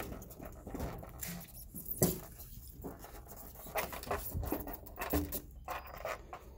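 Scattered light clicks and scrapes of hands working the vending machine's door and lock, with a sharper click about two seconds in.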